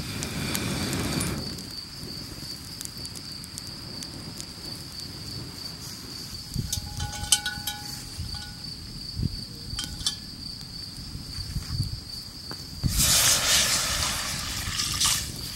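Water poured into a cast-iron pot over a campfire, a loud splashing pour lasting about two seconds near the end. At the start a breath is blown onto the fire's kindling, and a steady high insect trill from the meadow runs under it all, with a few light crackles from the fire.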